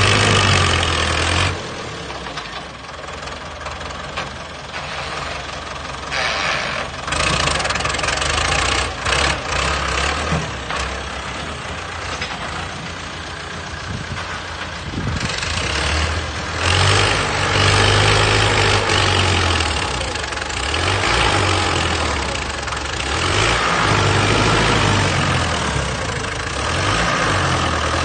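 Diesel engines of heavy land-clearing machines, tractors and bulldozers, running with a low steady hum. The sound changes abruptly several times as one machine gives way to another.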